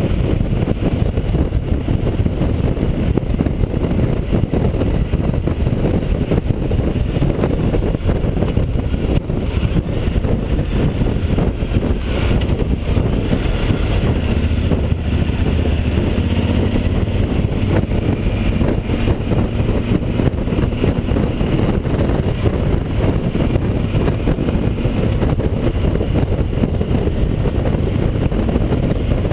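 Yamaha XT1200Z Super Ténéré's parallel-twin engine running as the motorcycle rides along city streets, heard through steady wind rumble on an action camera in an open-backed housing.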